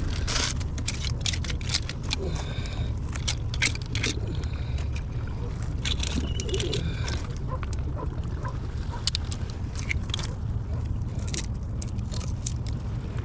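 Scattered sharp clicks and scrapes of shoes and a knife against barnacle-covered shore rocks while gathering small mussels, over a steady low rumble of wind and water on the microphone.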